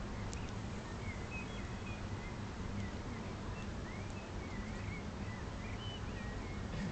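Steady outdoor background hum with faint, scattered bird chirps.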